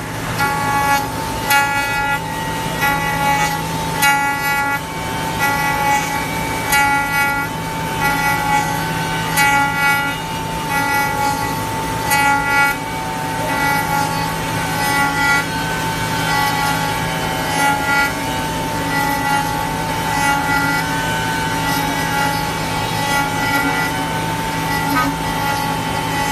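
CF-MASTERT2-28 5-axis CNC router's spindle whining at a steady pitch over a low hum while its end mill carves a curved wooden part. Short pitched cutting tones come and go as the bit bites into the wood, frequent in the first half and thinning out later.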